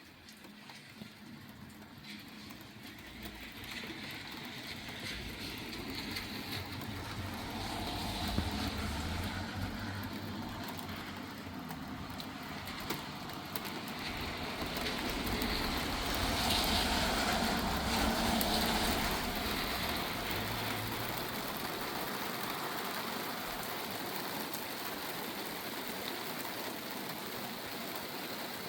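Rain shower falling with a steady hiss, under a long low rumble that swells over several seconds, is loudest a little past the middle and dies away, leaving the rain.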